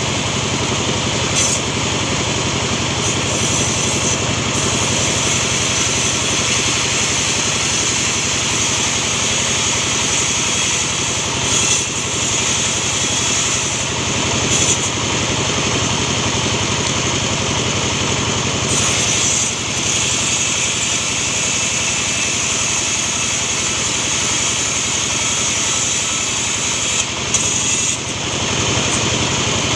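Petrol saw engine, a chainsaw-type small engine, running steadily, with a few brief changes in its sound.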